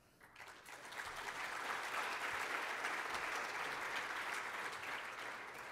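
Audience applauding: many people clapping together, swelling over the first second, holding steady, then starting to thin out near the end.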